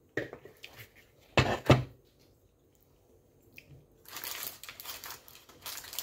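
Two sharp knocks about a second and a half in, then rustling and crinkling of scrunched baking paper lining a cake tin from about four seconds.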